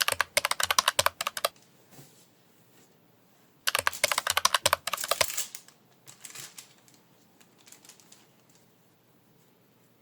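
Two bursts of rapid, sharp clicking, about ten clicks a second and each lasting about a second and a half, the first at the start and the second about four seconds in, followed by a few faint scattered ticks.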